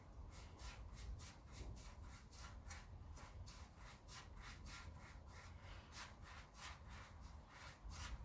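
Faint, quick rubbing or scraping strokes by hand on wood, about three or four short strokes a second in an uneven rhythm.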